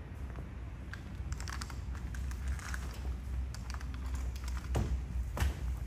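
Scattered light clicks and taps over a steady low rumble, with two heavier thuds near the end.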